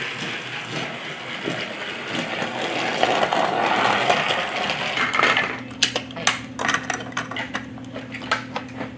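Motorized Trackmaster toy train running along plastic track with a steady whirring rattle. About halfway through it gives way to hard plastic Mega Bloks pieces clicking and clacking together as they are handled, a quick string of sharp clicks.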